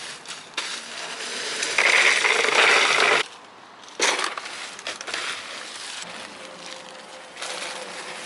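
Loose ice cubes clattering and crunching in several noisy bursts, the loudest about two to three seconds in, with another sharp clatter about four seconds in.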